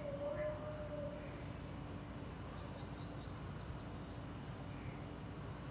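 A brief steady tone in the first second, then a small bird singing two rapid trills of high chirps, over a steady low hum.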